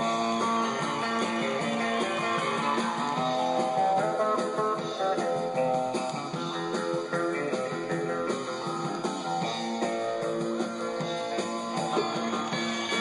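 Country music from a live recording, with strummed and electric guitars over bass, played back from a vinyl record on a turntable.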